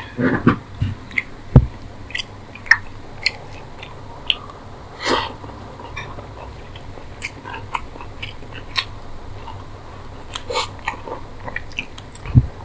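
Close-miked chewing and wet mouth clicks of someone eating rice with chicken curry and egg curry by hand. A few low thumps are heard, the loudest about one and a half seconds in and near the end.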